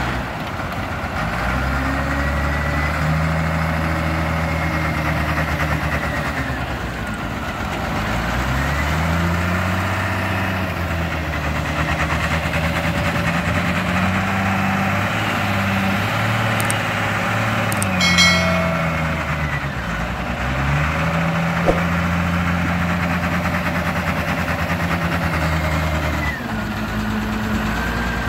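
Komatsu WA350 wheel loader's diesel engine working, its pitch rising and falling repeatedly as it dumps a bucket, backs up, scoops from a pile and drives back loaded, with a whine that follows the engine speed. A brief shrill sound cuts in about two-thirds of the way through.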